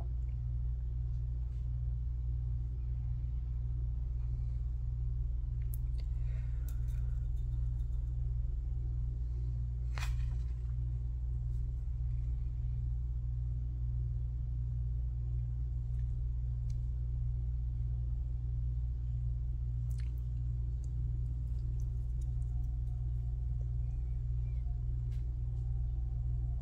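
A steady low hum, with a few faint light clicks scattered over it, the sharpest about ten seconds in.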